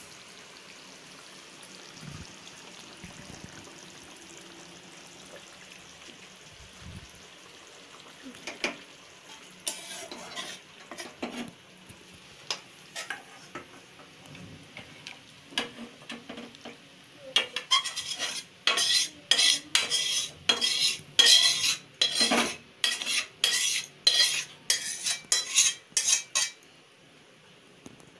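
Metal spatula scraping thick curry out of an aluminium kadai into a steel bowl: a few scattered scrapes and knocks at first, then a fast run of loud scraping strokes for about nine seconds near the end.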